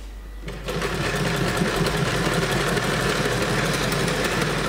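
Vintage black sewing machine running at speed, stitching fabric with a fast, even mechanical rattle. It starts about half a second in and stops near the end.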